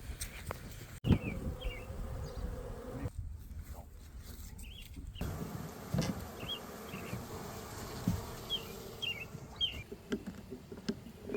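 Honeybees buzzing steadily as colonies are being installed, with a few dull knocks, the loudest about a second in, and a few short high chirps.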